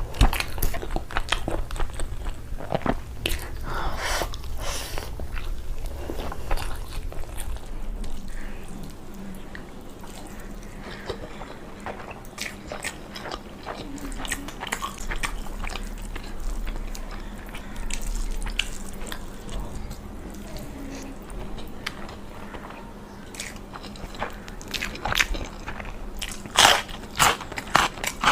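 Close-miked eating: biting and chewing food with crunchy, wet mouth sounds. Clusters of louder bites in the first few seconds and again near the end, with softer chewing between.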